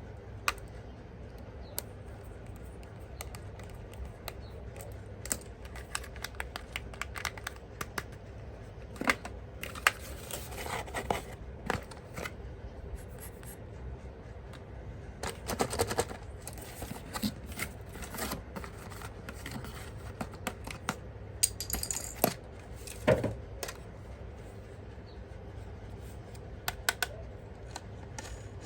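Hands unpacking and handling a toy and its packaging: irregular sharp plastic clicks, scratches and short rustles, over a steady low hum.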